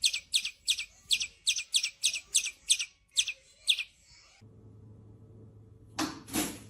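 Angry birds calling, a rapid, even run of sharp, high chirps, about four a second, that stops about four seconds in. A faint low hum follows, with two short noisy sounds near the end.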